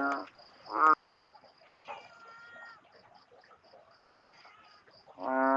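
Frogs calling after rain at night: loud, flat-pitched calls at the start and again near the end, and a fainter, higher call about two seconds in. Under them runs a steady high insect chirping, about three pulses a second.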